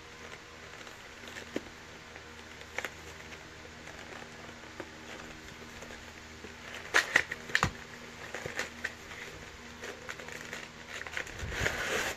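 Fingers picking at and prying open a sealed cardboard product box, with scattered scratches and clicks and a few loud sharp snaps about seven seconds in as the flap gives. Near the end, crinkling of a clear plastic blister pack as it is pulled out of the box.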